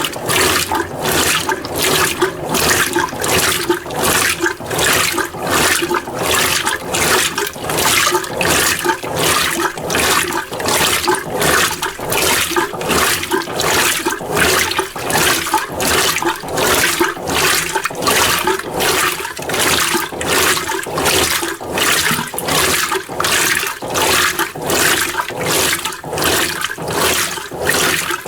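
Mueller Energy 8 kg top-load washing machine agitating a small load of clothes in a low level of water. The water sloshes and splashes in a steady rhythm, about one and a half surges a second, as the drive swings back and forth.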